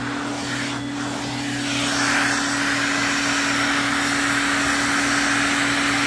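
Vacuum cleaner running with a steady motor hum, air rushing through a pet-grooming brush nozzle as it is drawn through a dog's long coat. The airy rush grows a little louder and brighter about two seconds in.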